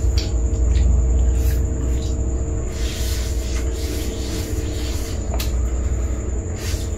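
Hand-fed chowmein noodles being slurped and chewed, with short slurps about three seconds in and again near the end, over a steady low rumble and a constant high-pitched tone.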